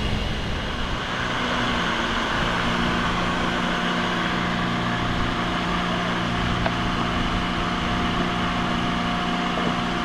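Electric heat gun running, a steady fan whir with hissing hot air. It is heating a propeller-shaft strut to free a stuck cutless bearing.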